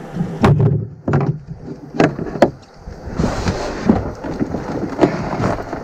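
Handling a large northern pike on a molded plastic boat deck: a series of sharp knocks and thumps, about five spread over several seconds, with a short stretch of rustling hiss about three seconds in.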